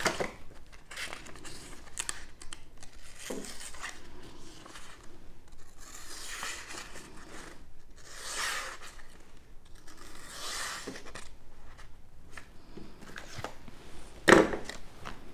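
Folding knife blade slicing through sheets of paper in several strokes, with the rasping, tearing sound of paper being cut: a sharpness test. Near the end comes one sharp clack, the loudest sound.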